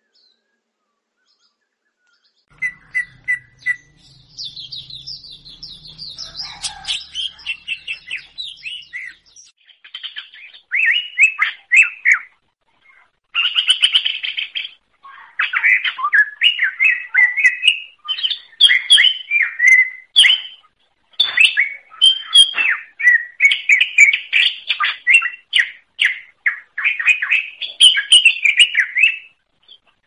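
A songbird singing a long, fast, varied song of chirps, whistles and trills, starting after about two seconds of silence with a few short notes and then running on in quick phrases until just before the end.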